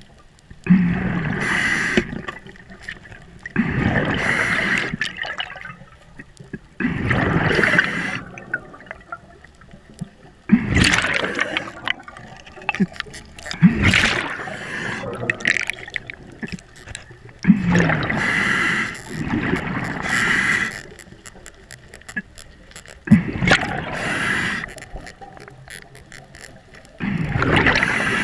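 Scuba diver breathing through a regulator underwater: bursts of hissing breath and gurgling exhaust bubbles repeat every three seconds or so, with quieter gaps between.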